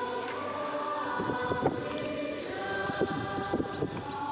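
A choir singing in steady held notes, with a few soft knocks about halfway through.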